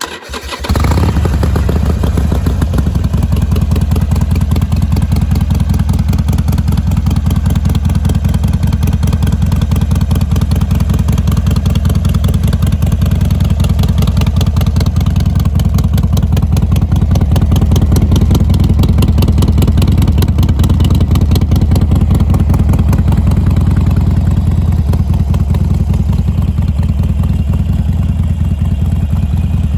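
Harley-Davidson Sportster Iron 883's air-cooled 883 cc V-twin is started with the electric starter and catches within about a second. It then idles steadily with a fast, even beat.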